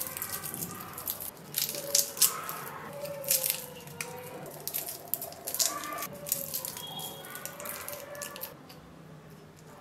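Fingers peeling the charred, brittle skins off roasted shallots. The skins crackle in short sharp bursts, with light ticks as bits of skin drop onto a steel plate.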